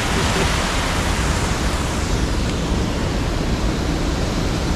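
River water rushing steadily through a small dam.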